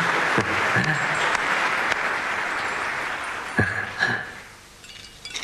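Many people clapping in applause, with a couple of short cries over it, fading away about four seconds in.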